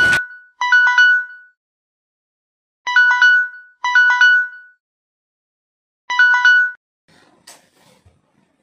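Smartphone alarm tone ringing: a short electronic chime of a few steady notes, repeated in bursts about a second or two apart, stopping after about six and a half seconds.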